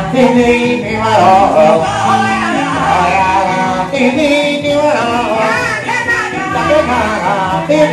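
Church praise music: a man sings a gospel song into a microphone through a PA, over accompaniment with held bass notes.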